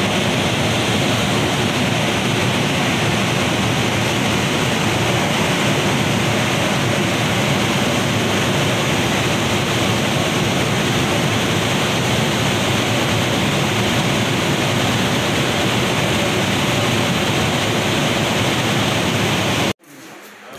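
Loud, steady rushing noise, even and unchanging, that cuts off abruptly near the end.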